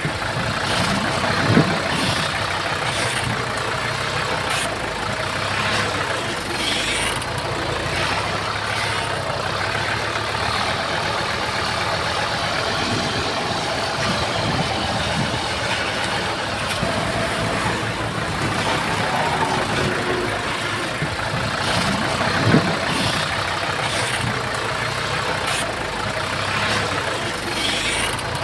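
Heavy earthmoving machinery running steadily at a work site, with two sharp knocks standing out, one about a second and a half in and one later on.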